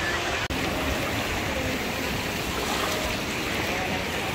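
Shallow surf washing up and over a sandy beach: a steady rushing of breaking waves, with a split-second dropout about half a second in.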